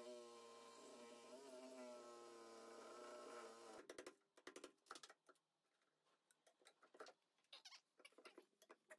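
Faint steady whine of a cordless reciprocating saw cutting through a stuck engine-mount bolt, stopping about four seconds in. Then a run of light, irregular hammer taps and knocks on the mount.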